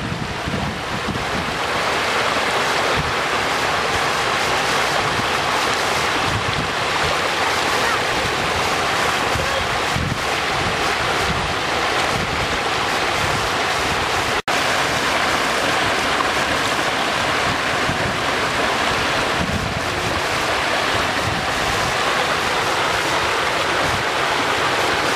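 Muddy flash-flood water rushing and cascading over a low weir and down through rocks in a wadi, a loud, steady rush. Wind buffets the microphone throughout, and there is a momentary dropout about halfway through.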